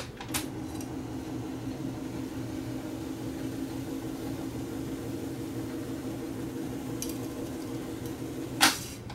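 Akai 4000DS Mk2 reel-to-reel tape deck switched into fast wind with a click, the reels spooling tape with a steady mechanical whir and hum, then stopped with a loud clunk of the transport lever near the end. The noise comes from the idler, a worn rubber tire with a new belt glued on, still bedding in and getting quieter with each wind.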